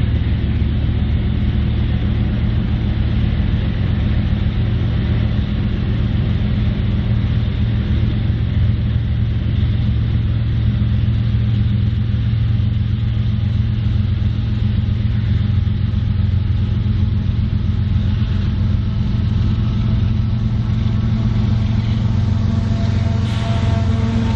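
Diesel locomotive running with a steady low rumble. Several steady higher tones join in over the last few seconds.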